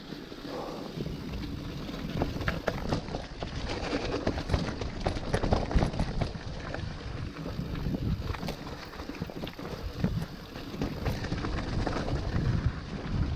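Mountain bike ridden fast along a dirt trail, heard from a camera on the bike or rider: wind buffeting the microphone and tyre roar, with frequent sharp rattles and knocks from the bike over bumps.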